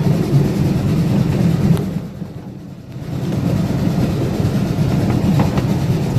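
Ride-on live steam railroad train rolling along the track, its wheels rumbling and clacking over the rails as heard from aboard the cars. The noise drops away sharply for about a second, about two seconds in, then returns.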